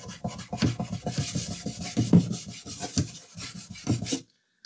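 A cloth rubbed briskly back and forth over the dirty wooden veneer of a 1930s tube radio cabinet, scrubbing off caked-on grime in quick, uneven strokes. It stops abruptly about four seconds in.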